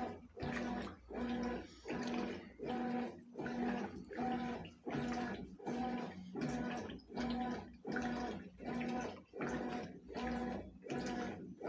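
Consul CWS 12 top-loading washing machine agitating its load in the wash cycle: the motor hums and the water and clothes slosh in short strokes, about two a second, reversing direction with a brief pause between each.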